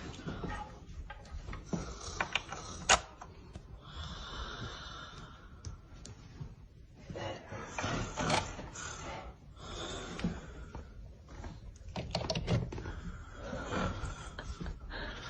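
A person snoring heavily, with loud rough snores swelling every four to five seconds and clicking sounds in between.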